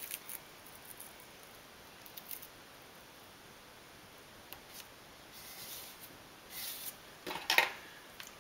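Quiet handling of thin masking tape on a paper template: small taps and rustles as the strips are pressed down, two brief hisses past the middle, and a sharp click near the end.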